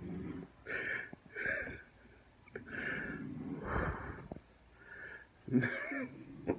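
A sleeping woman snoring: a run of uneven, noisy breaths, about six in the space of a few seconds.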